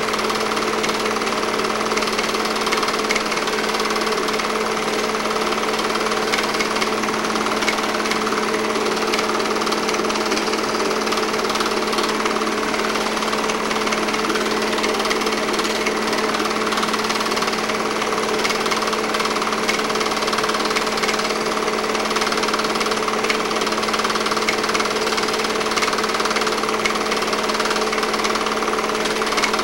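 8mm film projector running: a steady, fast mechanical clatter over a constant low tone.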